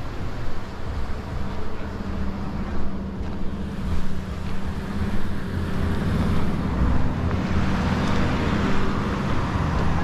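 A motor engine running steadily, with wind buffeting the microphone; a hiss grows louder in the last few seconds.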